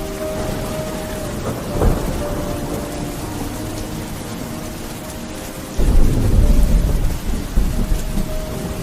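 Steady rain with thunder: a short crack about two seconds in, then a sudden, heavy low rumble from about six seconds in that lasts a couple of seconds.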